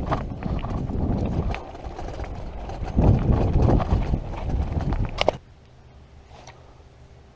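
Bicycle riding over a gravel track: rumble of tyres on loose stone with clicks and rattles, loudest near the end of the ride. It cuts off suddenly about five seconds in, leaving only a faint low hum.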